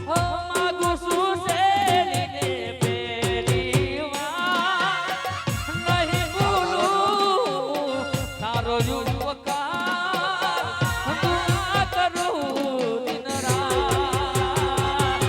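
Gujarati folk raas music: a wavering melodic lead over a steady, quick percussion beat.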